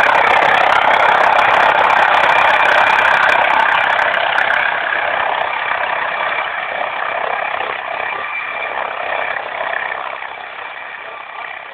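Helicopter engine and rotor noise, a steady loud rush that fades gradually over the second half.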